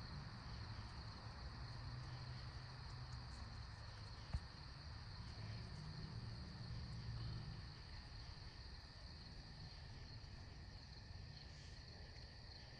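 Crickets chirping steadily and faintly in the background, over a low rumble, with a single sharp click about four seconds in.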